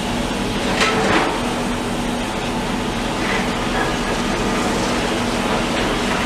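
Demolition machinery running steadily with a constant engine hum. Brief clatters of broken material come about a second in and again near three seconds.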